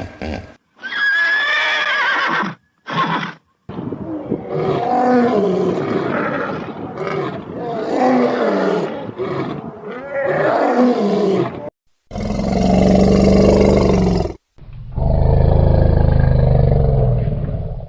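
A run of animal calls one after another, ending in two long, deep big-cat roars, the first about two seconds and the second about three.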